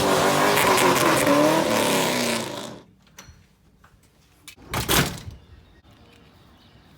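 Air-bag suspension letting air out as the car is lowered: a loud hiss with shifting whistling tones that cuts off about three seconds in, then a second short burst of hiss about five seconds in.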